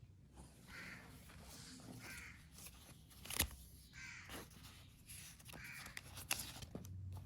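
Harsh bird calls, like a crow cawing, repeated about every one and a half to two seconds, with a few sharp clicks between them, the loudest about halfway through.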